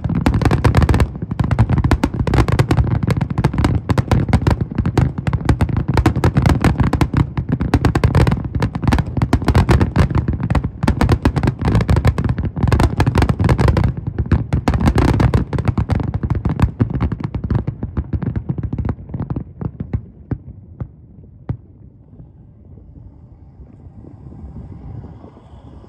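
Fireworks finale: a dense, rapid barrage of bangs and crackling bursts that thins out after about 16 seconds and dies away around 21 seconds, leaving only a low steady rumble.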